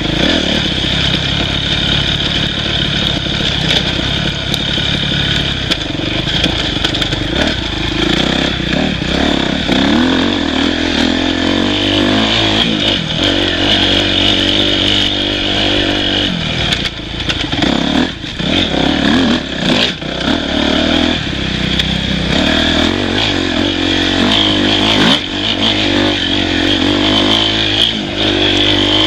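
Dirt bike engine revving up and down as it is ridden over rough singletrack, the pitch rising and falling with the throttle and easing off a few times in the middle. Scattered knocks and rattles from the bike bouncing over the bumpy trail.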